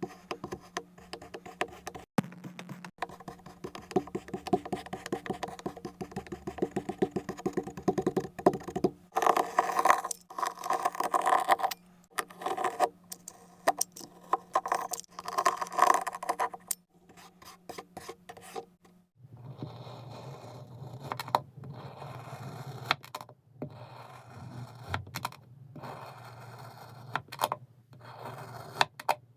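Kinetic sand being cut and scraped with a blade: a run of gritty scrapes and sharp clicks, louder through the middle stretch.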